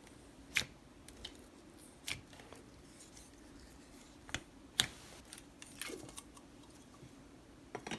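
Thick butter slime being pressed and stretched by hand, giving about six sharp clicks and pops spread unevenly across several seconds.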